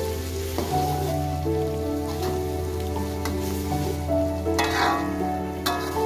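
Stir-fry sizzling in a steel wok while a spatula stirs and scrapes, with a few sharper scrapes, the strongest just before five seconds in. Background music of held, stepping notes plays over it.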